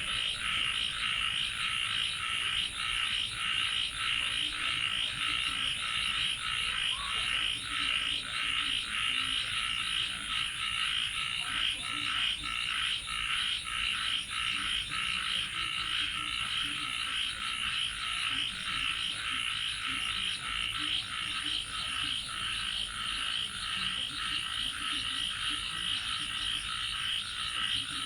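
A dense chorus of many frogs calling continuously in rapid, overlapping pulses. A steady high-pitched drone sits above it.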